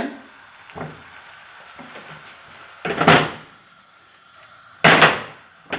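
A frying pan of linguine being tossed over a gas burner, giving two loud noisy rushes about half a second long, one about three seconds in and one near the end, with a few faint knocks of the wooden spoon against the pan before them.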